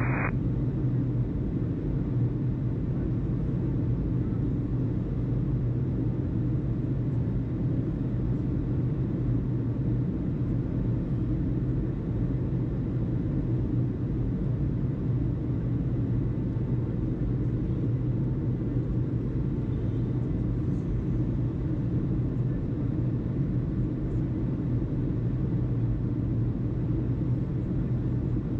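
Steady low background rumble with a constant low hum in it, unchanging throughout.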